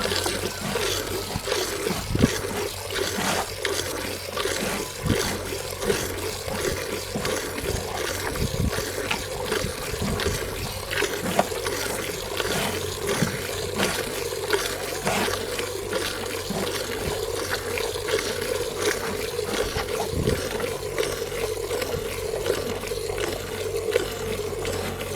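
Murrah buffalo being milked by hand into a bucket: repeated squirts of milk splashing into the pail, over a steady hum.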